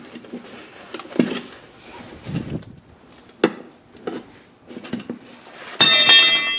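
Steel tire spoon clinking and scraping against the metal wheel rim as a tire is levered onto it by hand, in scattered sharp knocks. Near the end a short, loud high-pitched whine cuts in.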